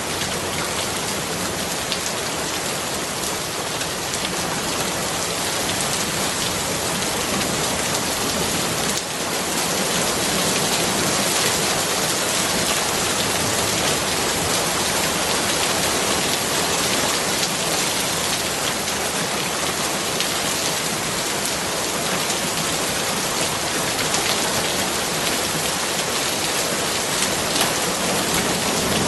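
Steady, dense rainfall: an even hiss of many drops hitting a surface, growing a little louder about a third of the way through.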